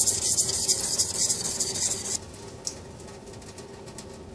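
A Takamura HSPS Pro honesuki blade being stroked rapidly back and forth on a wet whetstone: a scraping rasp of steel on stone that stops abruptly about halfway through.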